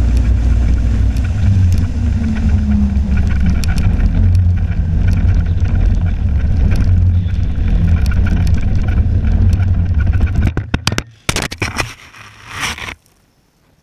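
Snowmobile engine running steadily at speed. About ten and a half seconds in the engine sound drops away into a few sharp knocks and scrapes as snow packs against the camera, then the sound cuts off suddenly.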